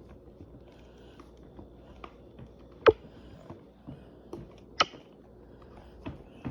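Plastic clicks and small rattles from the dust canister and filter parts of a Bissell PowerForce Compact Turbo upright vacuum being worked apart by hand, with two sharper snaps about three and five seconds in.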